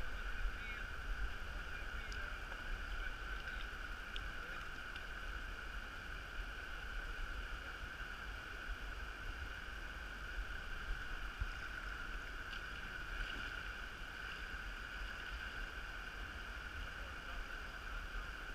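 Steady rush of water pouring over a low river weir, with a low rumble underneath.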